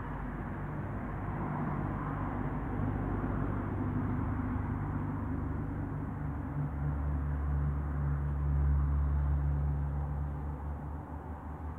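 An engine running steadily with a low hum, growing louder and deeper about halfway through.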